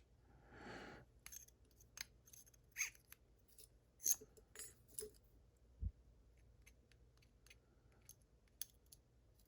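Faint, scattered small metallic clicks and taps as the pins and small parts of a disassembled pin-in-pin lock are handled.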